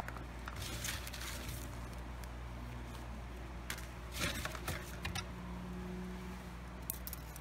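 Cardboard box of CV boot kit parts being opened and rummaged through, in two spells of rustling and scraping, with a few light clicks near the end.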